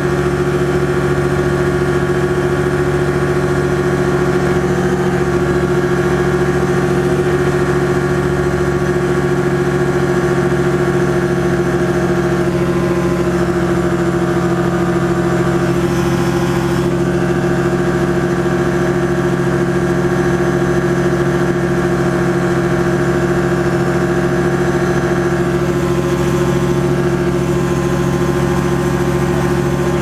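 Challenger ultralight aircraft's engine and propeller running steadily in level flight, a loud drone that holds one pitch.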